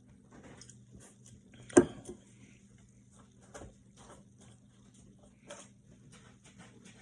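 One sharp knock about two seconds in, among faint scattered taps and clicks, over a low steady hum.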